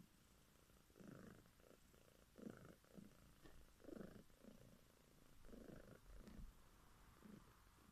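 Domestic cat purring faintly, in a slow rhythm that rises and falls with each breath about every one and a half seconds.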